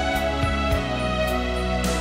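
Instrumental background music: held chords over a steady bass, with a light, regular beat.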